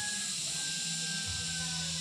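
Soft background music with a few long held notes over a steady high hiss.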